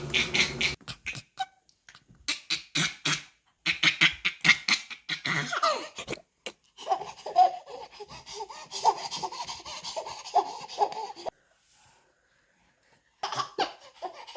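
Baby laughing in repeated bursts of giggles and belly laughs, cut off abruptly a few times, with a short silent gap near the end.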